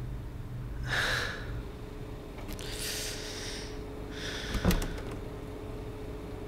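A man breathing heavily: three loud breaths or sniffs a second or two apart, with a sharp knock about four and a half seconds in, over a faint steady hum.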